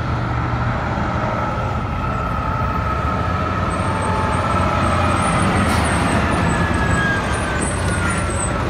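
Volvo semi-truck hauling crates of live chickens drives up and passes close by. Its diesel engine rumbles steadily under a whine that slowly falls in pitch, and faint high chirps join in from about halfway through.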